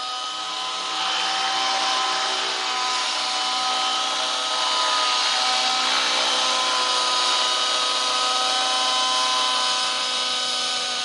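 Align T-Rex 700 nitro RC helicopter's glow engine running at high revs with its rotors turning, a steady high-pitched whine. It grows louder about a second in.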